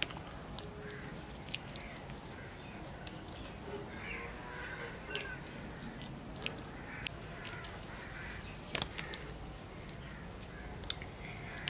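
Light scattered clicks and scrapes of a metal spoon spreading thick marinade over a whole fish, with faint short calls in the background.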